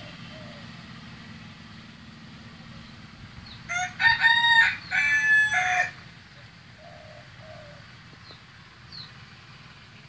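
A rooster crows once, about four seconds in, for about two seconds, in a few linked segments, over a steady low hum. A few faint short bird chirps are heard.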